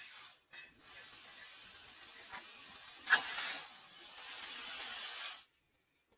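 Red-hot edge of a spring-steel kitchen-knife blade being quenched in water, hissing steadily as the water flashes to steam, with a sharper sputter about three seconds in. The hiss cuts off suddenly about a second before the end.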